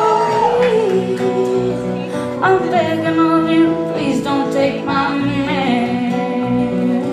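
Live band playing a country song: a woman singing long held notes over acoustic guitar and drums, heard from the audience.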